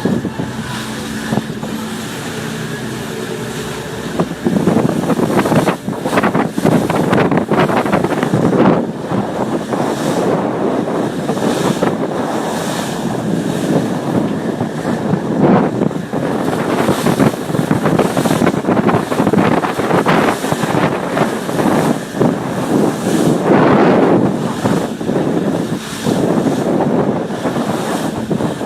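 Wind buffeting the microphone aboard a fishing boat, with waves splashing; it gets louder about four seconds in.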